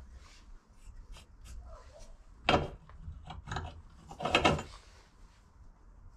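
Hand handling of a drill bit at a bench drill press that is not running: a few light clicks, then two short, harsh scraping rubs, about two and a half and four and a half seconds in.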